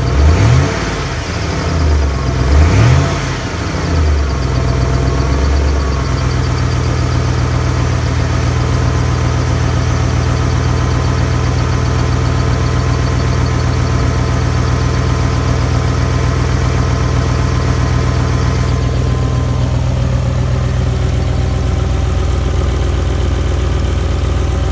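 2008 Mustang GT's 4.6-litre V8 revved a few times, then settling to a steady idle, with the loud ticking from the engine whose cause the owner doesn't know.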